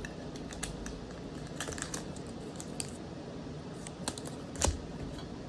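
Light clicks and taps from hands handling a small metal card tin and its booster packs, with one louder knock about four and a half seconds in.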